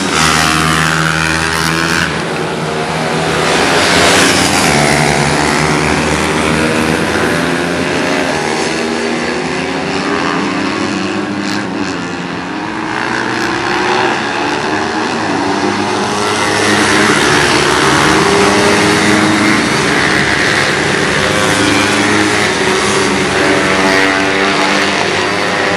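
A field of pit bikes racing, several small single-cylinder engines running at once, revving up and down through the corners and straights as they pass near and far, with overlapping rising and falling pitches. The sound dips a little about twelve seconds in, then swells again as the pack comes closer.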